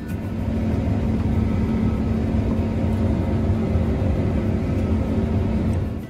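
New Holland combine harvester running steadily under load while harvesting wheat, heard from inside its cab: an even, low machine drone with a steady hum. It fades in at the start and cuts off at the end.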